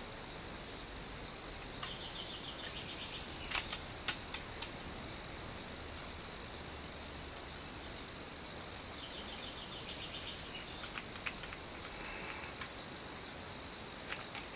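Scattered small clicks and faint crinkling of fingers picking at and peeling clear adhesive tape off hard plastic toy parts. The clicks come irregularly throughout, several close together about three to five seconds in.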